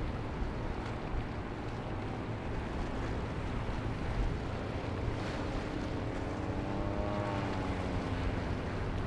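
Steady wind rumble on the microphone over surf, with a small engine's drone coming in about five seconds in, rising slightly, then falling in pitch before it fades near the end.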